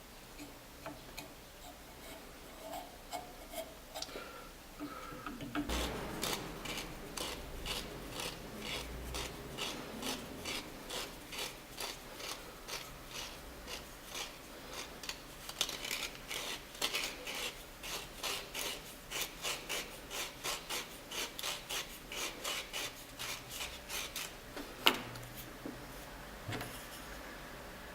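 Wood being smoothed by hand, an abrasive rubbed back and forth across it in quick even strokes, about two or three a second. A single sharp knock near the end.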